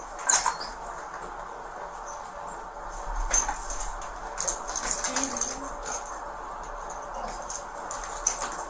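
Rustling, scraping and scattered clicks of movement close to a police officer's Axon Body 3 body-worn camera, over a steady low room hum.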